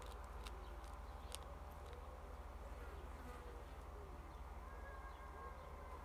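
European hedgehog chewing cat kibble, faint crisp crunches in the first couple of seconds, over the faint buzz of a flying insect that rises and falls in pitch.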